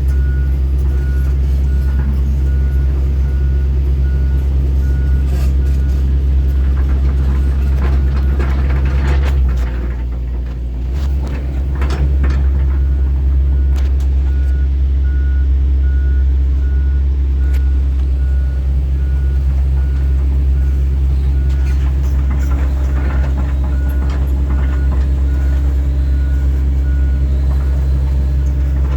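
John Deere 135G excavator's diesel engine running steadily, with its travel alarm beeping in an even series during the first part and again later. Around the middle the engine note drops briefly while a few clanks sound, then the engine picks back up.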